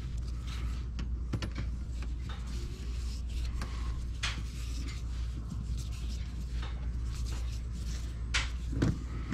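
Small clicks and scrapes of a screw being turned by hand with a screwdriver into a plastic wheel-well liner, with the liner rustling under the hands, over a steady low hum.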